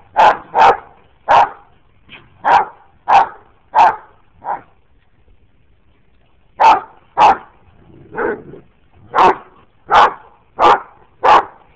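A large dog barking repeatedly in play while dogs wrestle: about fifteen short, sharp barks, roughly two a second, in two runs with a pause of about two seconds in the middle.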